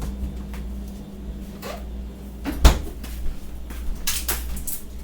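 Kitchen clatter: a few light knocks and one loud thump a little under three seconds in, over a low steady hum.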